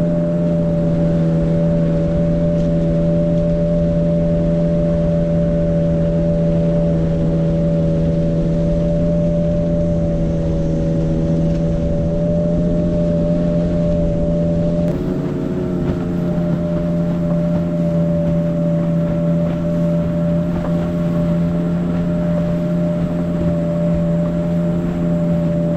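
A river longboat's outboard motor running steadily at cruising speed, with a brief wobble in its pitch about halfway through.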